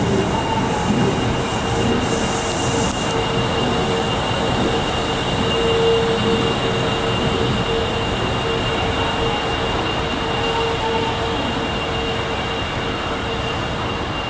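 Osaka Metro 25 series subway train moving slowly along the platform, giving a steady rumble with a steady whine over it that swells about halfway through.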